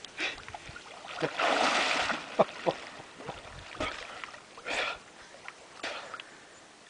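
Water splashing and lapping around a swimmer in a lake. A longer rush of splashing comes about a second and a half in, followed by a few short splashes.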